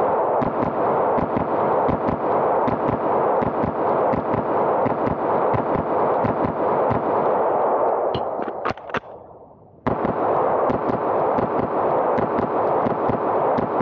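Smith & Wesson M&P 9 2.0 pistol firing 9mm 115-grain full metal jacket rounds in rapid strings, several shots a second. About eight seconds in the firing stops for a moment with a few single clicks, as for a magazine change, then the rapid fire starts again.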